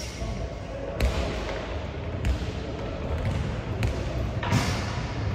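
Volleyball being hit in a rally in a sports hall: three sharp smacks about a second and a half apart, then a short rush of noise near the end.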